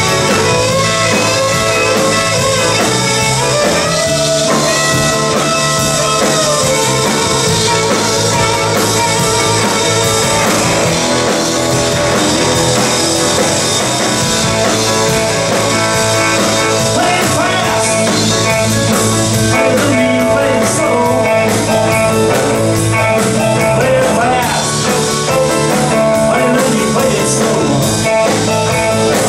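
Live blues band playing: electric guitar over drums and keyboard, with a man singing.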